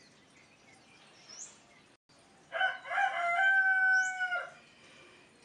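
A rooster crows once, a single drawn-out crow of about two seconds that starts in short bursts, holds one pitch and drops off at the end. A small bird chirps faintly now and then.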